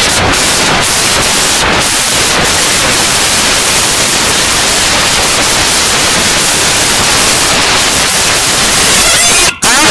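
Loud, steady static-like hiss: the cartoon's soundtrack distorted out of recognition by a heavy audio effect. Near the end it breaks off briefly with a quick warbling sweep.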